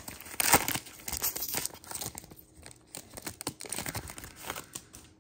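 Foil wrapper of a Donruss football trading card pack being torn open and crinkled by hand. It is loudest about half a second in, then thins to scattered crackles.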